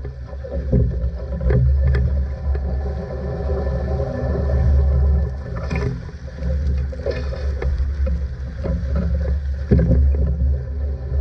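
Wind buffeting the microphone in a steady low rumble, with water rushing and splashing along the hull of a Marshallese outrigger sailing canoe under way; a louder burst of spray comes about six seconds in.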